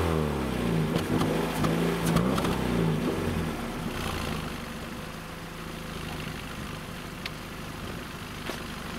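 Remapped, LPG-converted 1.4 four-cylinder engine of a Ford Fiesta MK7, heard at the tailpipe of its original exhaust. Its revs fall away from a throttle blip, it is blipped once more about a second in, and then it settles to a steady, quieter idle.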